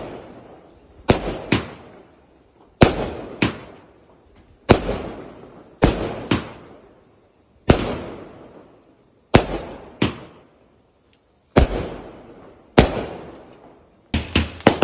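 Aerial fireworks bursting overhead: sharp bangs about every one to two seconds, often two close together, each ringing out with an echo as it fades. Near the end comes a rapid run of crackling pops.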